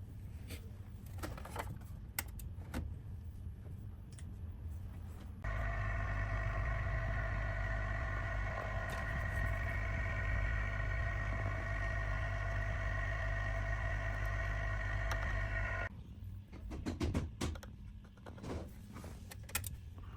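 An electrical machine switches on about five seconds in, running with a steady whine of several tones over a hum, and cuts off suddenly some ten seconds later. Light clicks and handling noises come before and after it.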